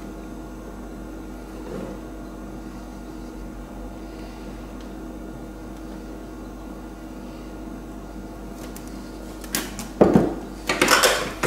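A steady low hum fills the kitchen while flour is poured into a bread maker's metal pan. About ten seconds in, the plastic flour tub is set down on the worktop with several sharp knocks and clatters.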